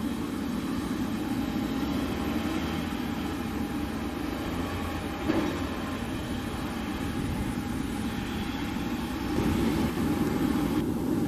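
Steady rumbling hum of a parked Boeing 737-800 jet airliner, with a faint steady whine over it and a single brief knock about five seconds in.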